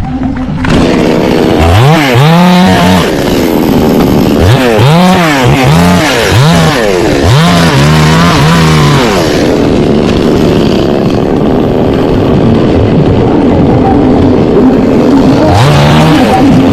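Chainsaw engine revved in a series of quick throttle blips, then running steadily at high speed, with one more rev near the end.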